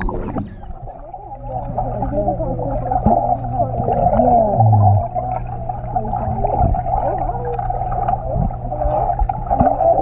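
Sound heard underwater in a swimming pool: a steady low hum under a dense warbling of squeaky tones, with a few muffled knocks and bubbling.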